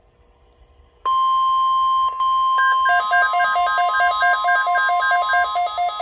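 NOAA Weather Radio 1050 Hz warning alarm tone, a steady single tone, starts abruptly about a second in, played through Midland weather alert radios. About a second and a half later the radios' own alert beeping joins over it, a fast, evenly pulsing beep at several pitches.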